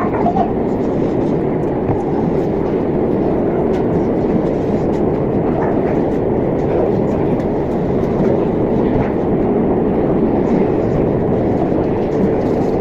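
Steady rumbling noise of a moving vehicle, heard from inside.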